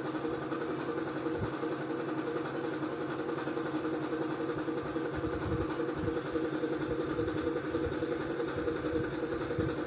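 Steady hum of city traffic and engines below a high-rise, with a few brief low rumbles about halfway through and near the end.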